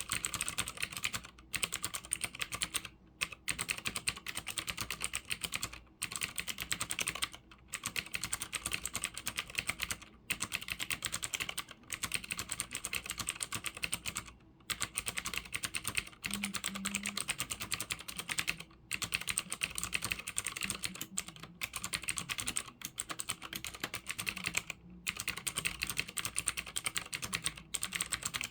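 Continuous fast typing on a Cherry G80-3000 mechanical keyboard with clicky Cherry MX Blue switches: a dense stream of sharp key clicks with short pauses every few seconds.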